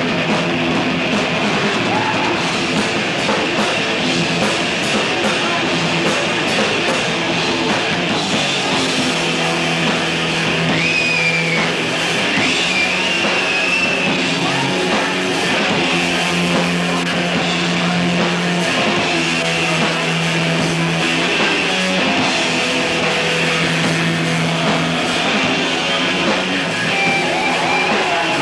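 Thrash metal band playing live, loud and dense: distorted electric guitars, bass guitar and drum kit, with sustained low notes shifting every second or two and a few high sliding guitar notes around the middle.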